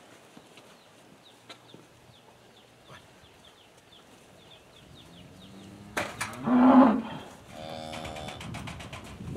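Charolais cattle mooing: one loud, low moo about two-thirds of the way through, then a higher call a second later. A few sharp knocks come around the calls.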